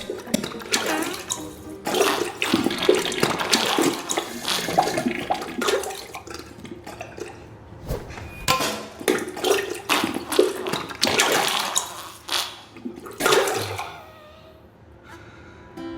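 Diarrhea sound effect: wet, sputtering flatulence and liquid splattering in irregular bursts, with short pauses between them, dying down near the end.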